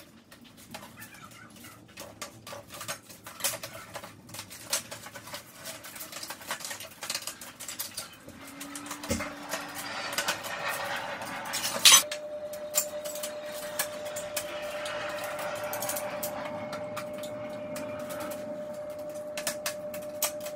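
A double-pane window sash being taken apart by hand: scattered clicks and knocks of the frame rails and glass being handled, with one loud sharp knock about twelve seconds in, and the rubber seal strip being pulled off the glass edges. A faint steady hum runs from the loud knock onwards.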